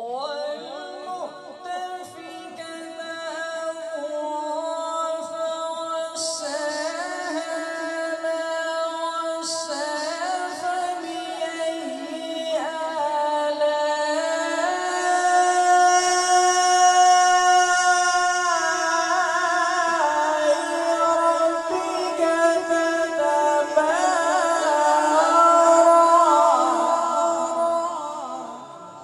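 A man reciting the Quran in the melodic tajweed style, his lone unaccompanied voice through a microphone holding long drawn-out notes with ornamented turns. It grows louder through the second half and fades out near the end.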